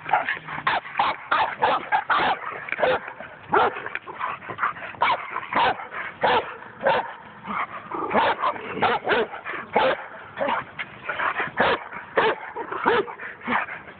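German Shepherd barking continuously, a rapid run of short sharp barks at about three a second.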